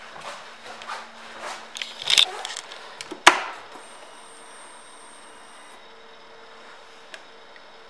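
Faint handling noises, then a sharp click about three seconds in, followed by about two seconds of a faint steady high whine. This is a Harley-Davidson Fat Boy Lo's ignition being switched on and its fuel pump priming before the engine is started.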